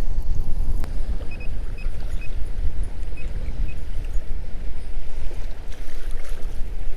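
Wind buffeting the microphone, a loud unsteady low rumble, over choppy water around a kayak. There is a single click just under a second in.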